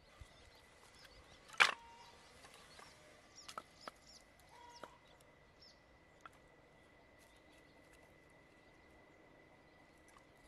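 Split firewood knocking on wood as pieces are stood upright over the coals of a fire pit: one sharp knock about a second and a half in, then a few lighter clicks and taps, with a faint steady high tone behind.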